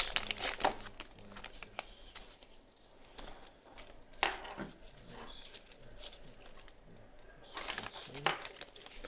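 Clear plastic zip bag crinkling and rustling while a nylon elastic head strap is taken out and handled. Dense crackling at the start, a short rustle about four seconds in, and another cluster of crackles near the end.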